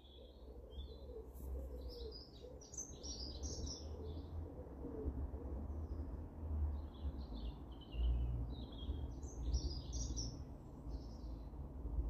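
Small garden birds singing and chirping in short clusters of quick high notes, in two main bouts with a lull between, over a low steady rumble.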